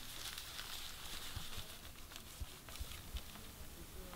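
Hands rubbing a cloth over newspaper: scattered rustling and small taps, with a few low knocks in the middle.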